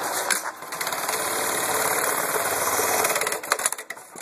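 Juki LK-1920 computer-controlled bartacking machine sewing a bartack: a fast, even run of stitches lasting about three seconds, followed by a few separate clicks as it stops.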